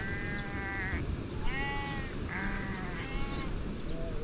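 Sheep bleating: about five short calls, one after another and at different pitches, so several animals are calling.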